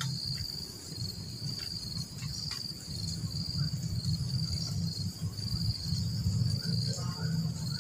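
Insects chirring in a steady, high-pitched, pulsing chorus, over a low steady rumble.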